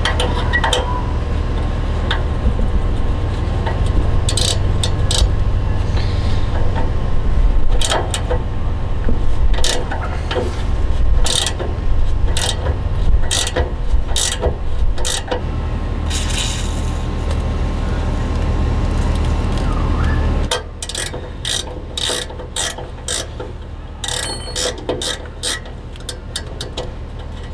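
Ratcheting wrench clicking in quick runs as it works the rusty nut off a front sway bar end link, under a low steady hum that stops about twenty seconds in.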